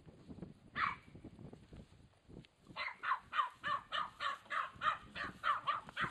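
Border Terrier barking at cattle: one sharp bark about a second in, then a rapid run of a dozen or so high barks, about four a second, from about three seconds in.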